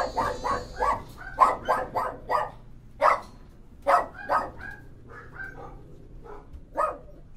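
A dog barking: a quick run of short barks for the first couple of seconds, then slower, spaced barks, the last one near the end.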